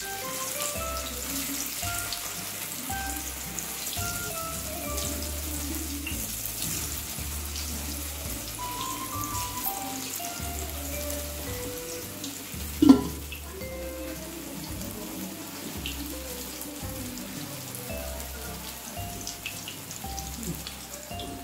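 Sliced colocasia-leaf rolls (rikvach) deep-frying in hot oil in a kadai: a steady crackling sizzle. A single sharp knock about thirteen seconds in. Soft background music with a simple melody plays over it.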